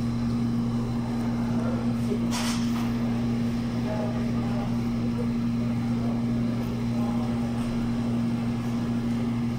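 A steady low machine hum with two unchanging tones, under faint voices in the room. A short hiss cuts in about two and a half seconds in.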